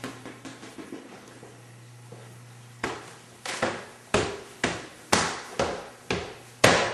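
Footsteps going down a staircase. After a quiet stretch, sharp steps begin about three seconds in and come at roughly two a second, over a faint steady hum.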